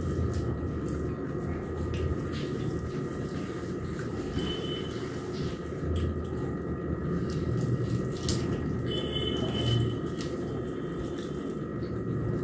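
Fingers mixing and mashing soft boiled rice on plates, small wet squishing sounds with faint clicks, over a steady background hum.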